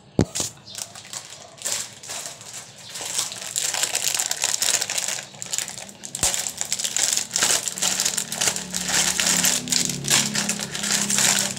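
Plastic wrapper of an Oreo cookie pack crinkling and crackling as it is pulled and torn open, partly with the teeth, then handled on the table. A single sharp knock right at the start.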